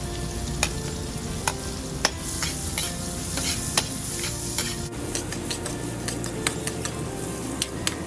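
Onion sizzling in hot oil and butter in a pan while being stirred, with frequent short clicks of the stirring utensil against the pan.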